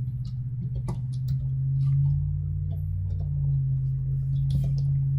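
Computer keyboard keys clicking in a few irregular taps, over a steady low electrical hum.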